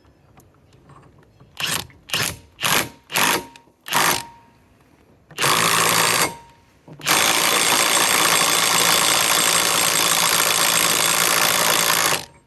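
Bosch GDS18V-330C 18-volt mid-torque cordless impact wrench tightening a fastener. It gives five short trigger blips, then a burst of about a second, then runs steadily for about five seconds before stopping near the end.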